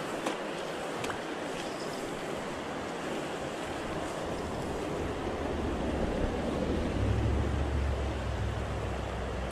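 Steady rush of the South Platte's flowing current. A low rumble comes in about halfway through and grows stronger near the end.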